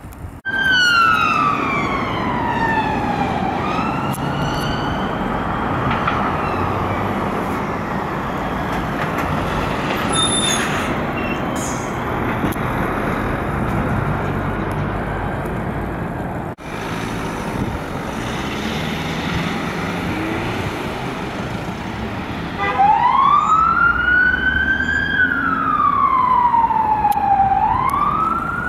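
Police car sirens in a slow rising-and-falling wail. Near the start a Skoda Superb dog unit's siren falls in pitch and fades within several seconds, leaving road traffic noise. About 23 seconds in, a Vauxhall Insignia response car's siren starts up loud and keeps wailing.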